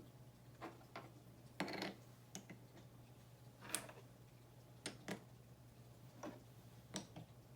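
Light, irregularly spaced clicks and taps from a wooden toy microwave and its wooden play-food pieces being handled, about one a second.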